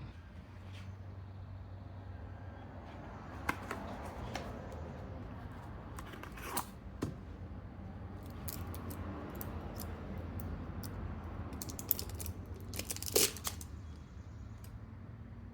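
Scattered clicks and knocks of objects being handled, with some rustling, over a steady low hum; the sharpest knocks come about three and a half, six and a half, twelve and thirteen seconds in.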